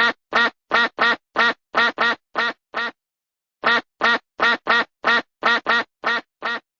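Duck quacking: two runs of about nine quick quacks each, with a short pause near the middle.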